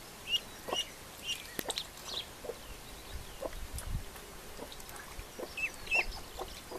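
Young ducklings peeping in short, high calls while they swim in a water trough. The peeps come a few at a time, in a bunch during the first two seconds and again near the end, with quieter gaps between.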